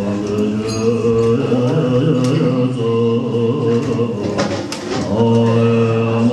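Tibetan Buddhist prayer chanting: low male voices reciting in a steady, droning unison, with a short break about four seconds in.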